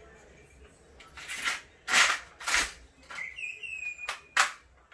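Paslode cordless framing nailer being handled and readied: a series of sharp metallic clacks and clicks, loudest about two seconds in and again near the end, with a brief high, slightly falling whine a little after three seconds.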